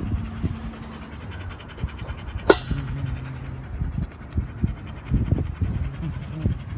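A rottweiler-type dog panting with its mouth open, in short irregular breaths. A single sharp click sounds about two and a half seconds in.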